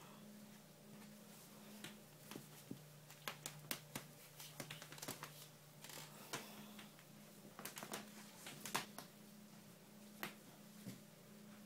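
Faint, scattered clicks and taps of puppies' claws and paws scrabbling on a hardwood floor as they play-fight, coming in irregular flurries with one sharper tap near the end.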